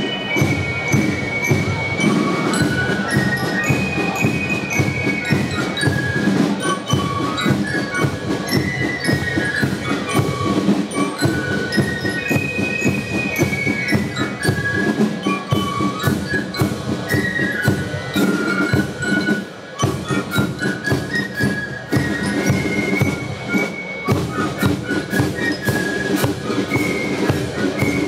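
A fife-and-drum corps playing a march: massed fifes carry a high melody over a steady beat of snare and bass drums.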